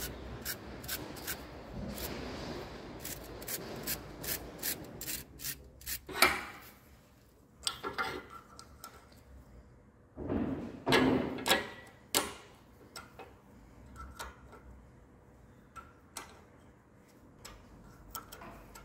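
Hands handling tools and parts at a workbench: rubbing and scraping with many small clicks, and two louder scrapes about six and eleven seconds in. Near the end, light metallic clicks of a spanner on a nut threaded onto a stud held in a vise.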